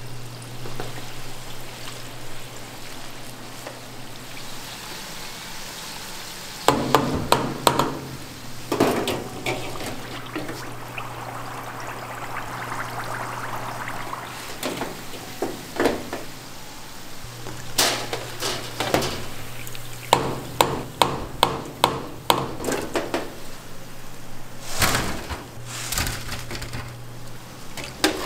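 Croquettes frying in a commercial deep fryer, the hot oil sizzling steadily over a low hum, while a wire-mesh skimmer basket clinks and knocks against the fryer's steel edges and rack in several bursts of sharp clatter.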